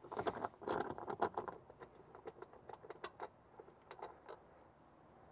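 Light metallic clicking and rattling of a 10 mm tool undoing a bolt at the rear headliner hanger. The clicks come thick for the first second and a half, then thin out and stop about four seconds in.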